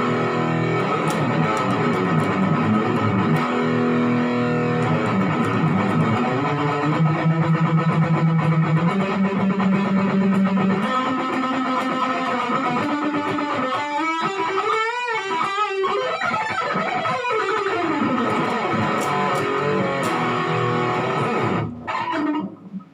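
Electric guitar solo over a steady accompaniment, with wide wavering bends and vibrato in the middle; the music breaks off near the end.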